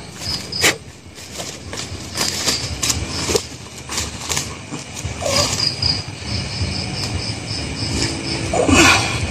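Crickets chirping in runs of rapid high pulses, with scattered clicks and rustles. Near the end comes a brief human vocal sound.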